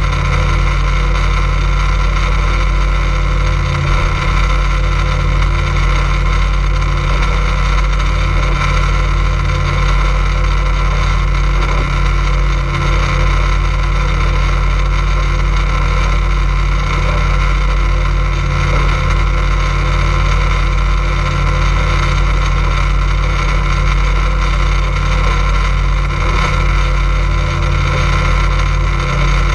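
Motorboat engine running steadily at a constant speed, a loud, unchanging drone.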